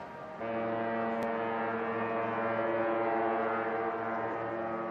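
A ship's horn sounding one long, steady blast with a low note and many overtones, starting about half a second in.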